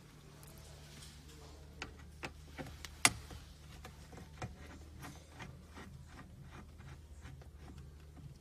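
Light clicks and ticks of a Phillips screwdriver working the factory head unit's mounting screws, with one sharp click about three seconds in and then a run of small ticks a few per second. A steady low hum sits underneath.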